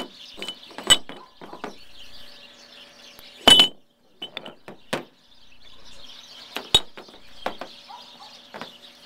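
Metal-backed brake pads clinking against each other and being set down on a car's painted metal body: a series of sharp clinks and knocks, the loudest about three and a half seconds in.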